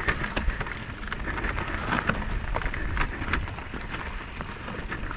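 Mountain bike rolling down a rocky dirt singletrack: tyres crunching over stones, with many irregular clicks and rattles from the bike. Wind rumbles on the microphone underneath.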